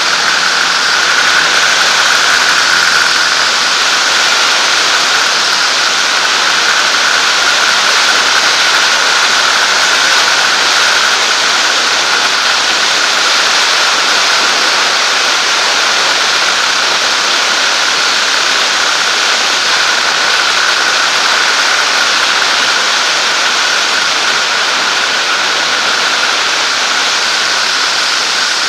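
Steady wash of airflow and engine noise from a Zenair 701 light aircraft in cruise flight, with a constant high tone running through it.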